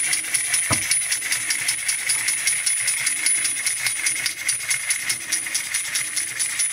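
A wind-up monkey toy clapping its small metal cymbals together in a fast, even rhythm, with a steady metallic ringing, as its clockwork carries it along.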